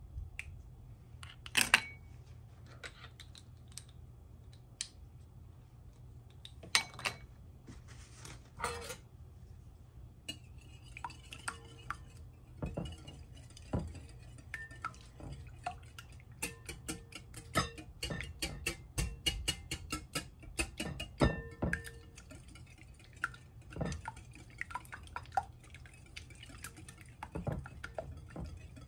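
Wire whisk beating raw eggs in a glass bowl, its metal wires clicking and clinking rapidly against the glass. A few separate knocks come first, and the fast whisking fills the later two-thirds.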